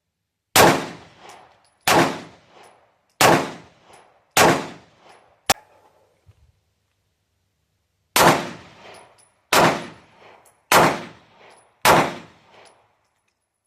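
Eight single gunshots from a 3D-printed firearm, fired in two strings of four about a second and a quarter apart, with a pause of a few seconds between the strings. A single sharp click falls just after the first string.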